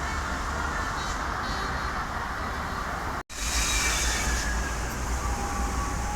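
Bus engines running with traffic noise: a steady low rumble. The sound drops out for an instant about three seconds in, and a short hiss follows.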